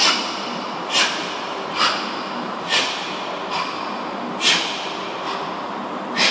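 A man's short, hissing exhalations, about one a second, in rhythm with his kettlebell swings, over a steady background hiss.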